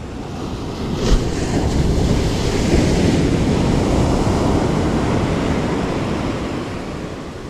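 Surf: a wave breaks and washes up the beach, swelling about a second in and fading near the end, with wind buffeting the microphone. A short sharp knock about a second in.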